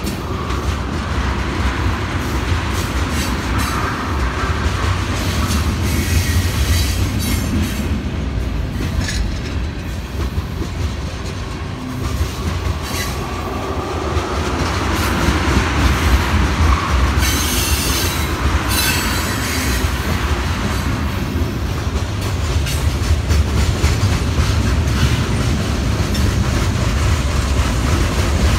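Freight train of tank cars rolling past close by: a steady heavy rumble of steel wheels on rail with repeated clacks. High-pitched wheel screeches come and go a little past the middle.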